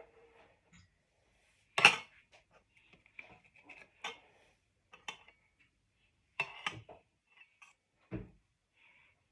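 A scattered series of clinks and knocks, like kitchenware being handled and set down. The loudest comes about two seconds in, and a duller thump comes near the end.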